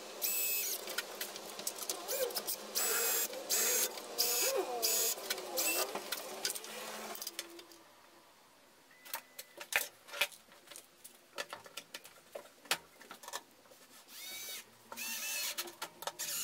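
A 14.4-volt cordless drill running in short start-stop bursts, its motor whining as it bores pilot holes in pine. After a pause come scattered light clicks, then another burst near the end as the drill drives a screw into the wood.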